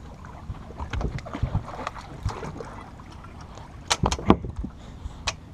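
Choppy water slapping and lapping against a bass boat's hull, with scattered small clicks and knocks, and a cluster of sharp, loud knocks about four seconds in.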